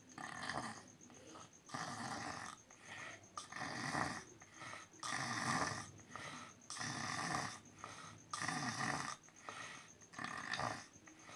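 A heavyset young man snoring in his sleep: a steady run of rasping snores, about one every second.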